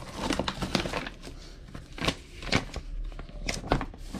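Hands opening a cardboard box and handling packing paper: irregular rustling, crinkling and scraping.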